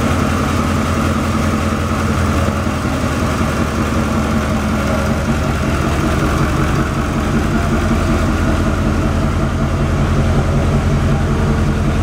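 Dually pickup truck's engine running steadily at idle as the truck creeps forward, its hood and front end stripped off so the engine sits exposed. There is no revving.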